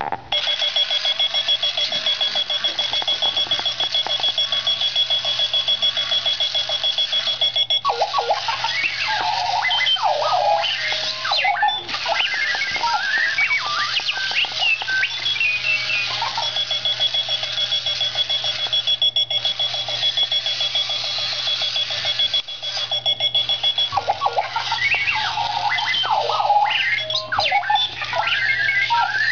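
Two-wheeled runaway alarm clock sounding its alarm: a rapid, steady, high beeping for several seconds, then a stretch of erratic robot-like chirps and warbles. The steady beeping returns partway through, and more chirps follow near the end.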